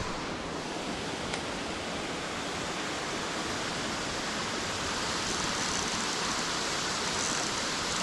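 Steady rush of a waterfall pouring into a creek pool.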